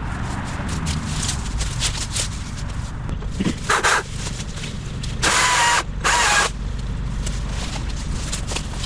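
Chainsaw revved in three short bursts: a brief one about four seconds in, then two louder half-second bursts just past the middle, each a high whine over the rattle of the chain. A steady low rumble runs underneath.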